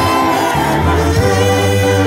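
Gospel music: voices singing held notes over a band with a bass line.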